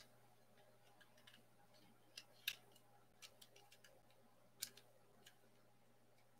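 Scattered small, sharp clicks and taps of a pistol and its attached laser sight being handled, with a louder pair a little after two seconds in and another past four and a half seconds.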